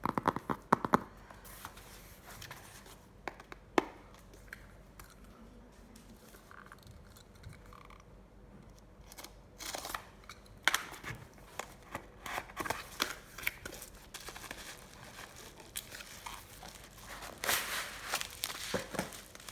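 Packaging being opened by hand: a quick run of sharp clicks and taps in the first second, then from about halfway on a busy run of crinkling, tearing and rustling.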